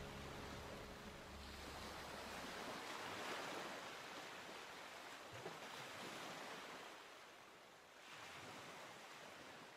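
Faint ocean surf washing in slow swells, dying away near the end. The last acoustic guitar notes fade out in the first second or two.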